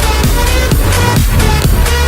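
Background electronic dance music with a steady kick drum, a little over two beats a second, under a synth melody.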